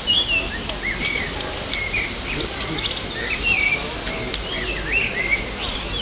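Small birds chirping: many short calls, some rising and some falling, come thick and fast throughout.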